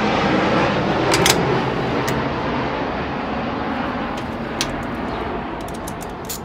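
Engine noise from a passing motor vehicle, loudest about a second in and then slowly fading. Over it come a few sharp metal clicks from a hand tool tightening a hose clamp.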